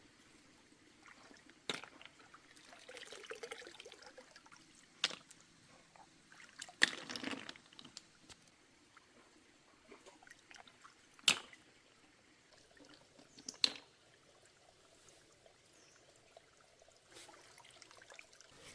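Water trickling and sloshing, with a few brief splashy stretches and five sharp, separate clicks spaced a few seconds apart.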